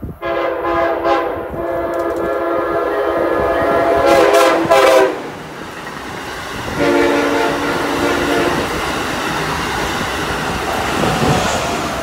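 Amtrak Acela trainset sounding its horn: one long chord-like blast of about five seconds, then a shorter blast about two seconds later. The rush and rail clatter of the train passing close by runs under and after the horn.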